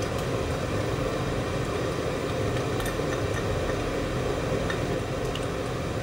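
Steady low hum, with a few faint clinks and scrapes from a spatula emptying a small glass bowl of sauce ingredients into a frying pan.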